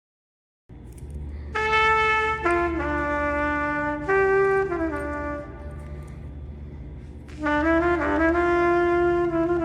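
Background music: a trumpet playing slow phrases of long held notes that step downward. It starts less than a second in, after a moment of total silence, and pauses briefly around the six-second mark before another long note.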